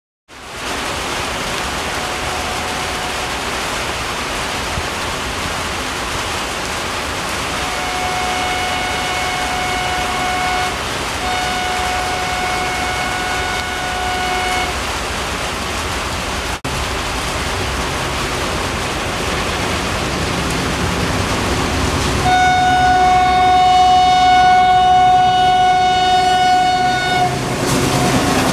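Steady hiss of heavy rain, while an approaching ALCo diesel locomotive sounds its horn several times: a short toot, two long blasts, then a louder long blast. The locomotive's engine rumble grows near the end as it draws close.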